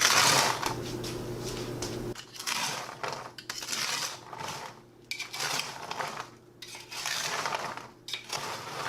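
Roasted pecans being salted on a metal cookie sheet: a few short spells of rattling and scraping of nuts and metal, with brief pauses between them.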